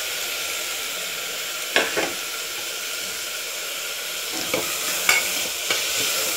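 Chopped tomatoes and onions sizzling in hot oil in an aluminium pressure cooker as they fry down soft, with a steady hiss. A steel spoon knocks and scrapes against the pot a couple of times about two seconds in and several more times in the second half as the mix is stirred.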